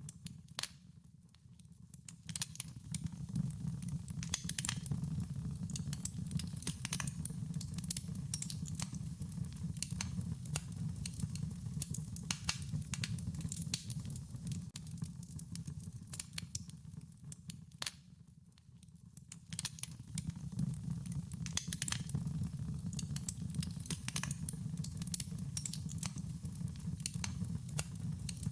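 Wood fire crackling, with many sharp irregular pops and snaps over a low steady rumble of burning; the sound briefly drops away twice, about a second in and again past the middle.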